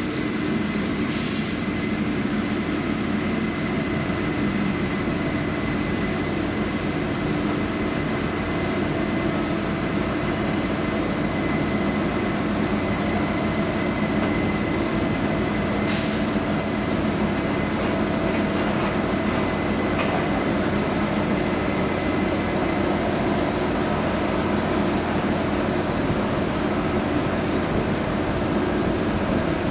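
Heavy railway track-construction machinery running steadily, with a thin steady whine over a low drone.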